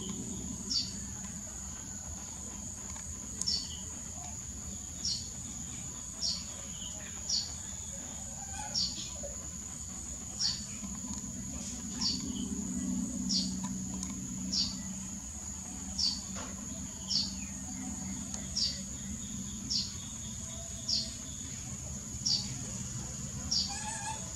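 Outdoor ambience: a steady, high-pitched insect drone, with a short falling bird chirp repeated about every second and a half and a low hum beneath.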